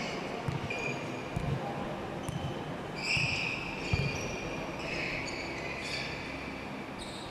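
Basketball game sounds: sneakers squeaking on the court in several short, high squeaks, with a few dull thuds of the ball bouncing.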